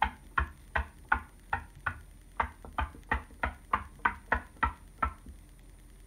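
A kururin stick toy knocking against a hard tabletop again and again as it is flipped and landed, about fifteen sharp knocks at roughly three a second. They stop about five seconds in.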